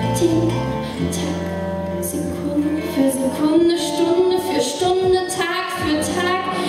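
A small live acoustic band plays: cello, acoustic guitar and bass guitar. About three seconds in, a woman starts singing over it.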